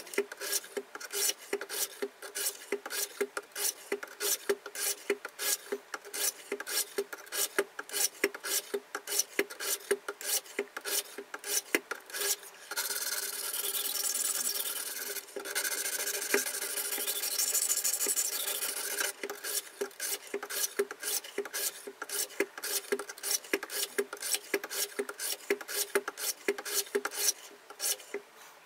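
KMFS Rival diamond sharpening plates rasping along both sides of a steel knife blade at once, in quick strokes several a second. For about six seconds in the middle the strokes run together into one continuous rasp.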